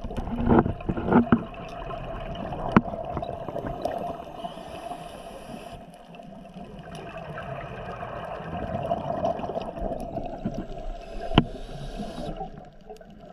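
Underwater sound heard on a scuba diver's camera: the diver's regulator breathing, with hissing inhales and bubbling exhales, over a steady hum and scattered sharp clicks. A stretch of high hiss comes about four seconds in and again near the end.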